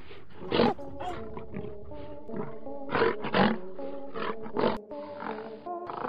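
Several short big-cat roars and snarls over dramatic background music with steady held tones.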